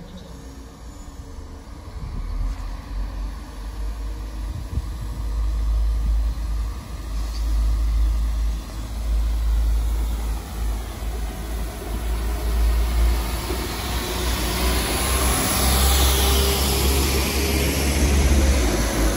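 Passenger train running, heard from inside the carriage: a low rumble that grows louder about two seconds in. A high hiss and a shifting whine join in over the last few seconds.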